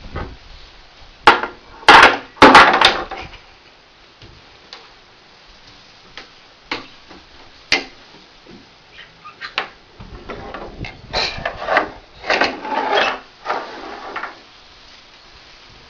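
Toy building blocks being handled, knocking and clacking against each other and the surface: a few sharp knocks in the first three seconds, scattered light clicks, then a longer run of clattering near the end.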